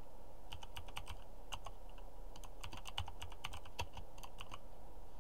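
Typing on a computer keyboard: an uneven run of key clicks.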